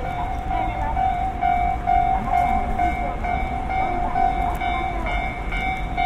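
Japanese railway level-crossing warning bell ringing: an electronic ding repeating evenly about twice a second while the crossing is closed for an approaching train.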